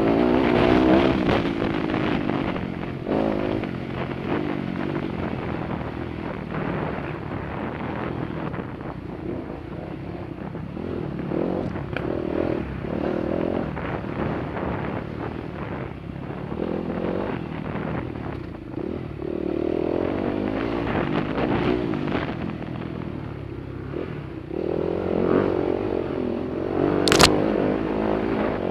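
Off-road dirt bike engine running hard, its pitch rising and falling repeatedly as the throttle is opened and closed, with one sharp knock near the end.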